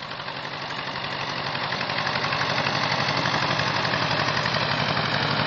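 Small farm tractor's engine running steadily with a fast, even chugging as it tows a loaded sled, growing louder over the first two seconds.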